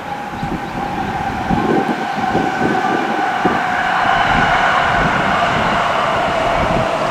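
JR West electric train pulling in, its motors whining in a steady tone that slowly falls in pitch as it slows, over the rumble of wheels on the rails. It grows louder as it approaches.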